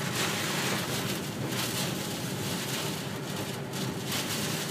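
Steady rush of storm wind and rain noise buffeting the microphone, with a faint low hum underneath.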